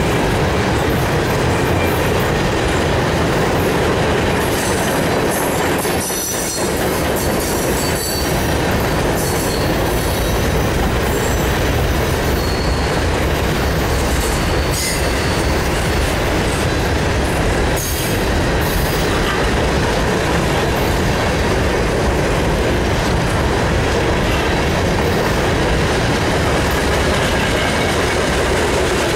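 Freight train cars rolling past close by on a curve: a steady, loud rumble and clatter of steel wheels on rail, with high wheel squeal coming and going.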